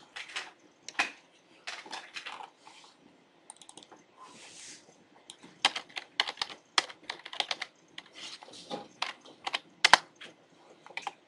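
Typing on a computer keyboard: irregular key clicks in short runs, with a pause of about two seconds around the middle.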